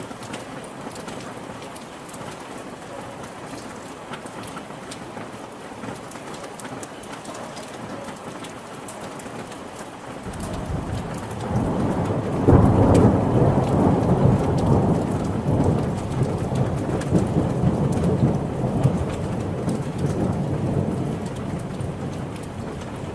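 Steady rain falling, with a long roll of thunder that builds about ten seconds in, peaks a couple of seconds later and slowly rumbles away.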